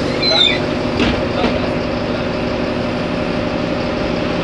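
Solaris Urbino 15 city bus engine running steadily, heard from inside the bus, with a few short high squeaks about half a second in.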